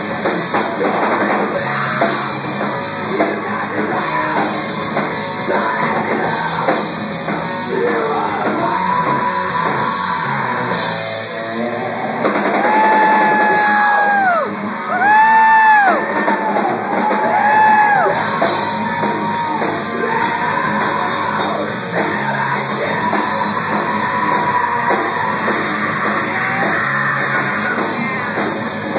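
Live heavy metal band playing: drum kit and distorted electric guitars, with a few long held high notes that bend up and fall away about halfway through.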